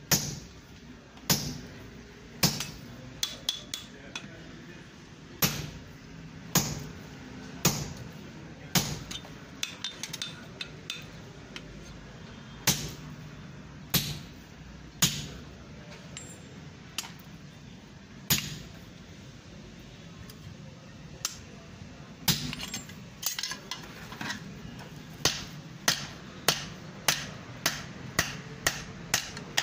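Hammer blows on a handled top tool set on a red-hot iron bar on a block anvil, sharp metal-on-metal strikes about a second apart with a few lighter clinks between. Near the end the blows come quicker, about two a second.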